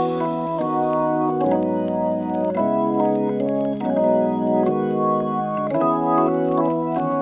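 Background music: sustained organ-like keyboard chords that change about once a second, with light percussion ticks.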